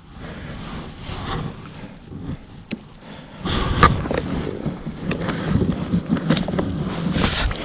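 Irregular knocks, scrapes and water noise of handling aboard a fishing kayak, getting louder and busier about halfway through.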